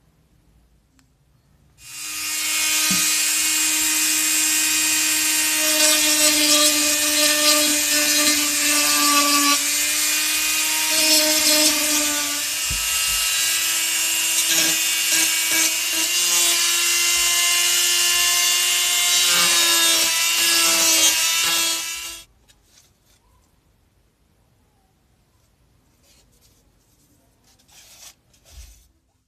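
Handheld rotary tool with a sanding drum bit running and sanding the cut edge of a PVC pipe: a steady high whine that starts about two seconds in, dips slightly in pitch now and then, and stops after about twenty seconds.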